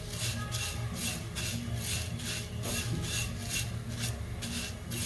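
Thick poha (flattened rice flakes) being stirred with a silicone spatula in a kadhai as they dry-roast toward crisp: a rhythmic dry rustling scrape, a few strokes a second, over a steady low hum.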